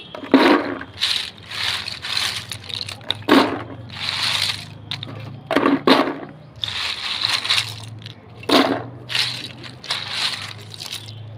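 Handfuls of crisp, sun-dried fryums (uncooked papad shapes) clattering and rattling as they are scooped up and dropped into a plastic tub. The bursts come irregularly, about one a second.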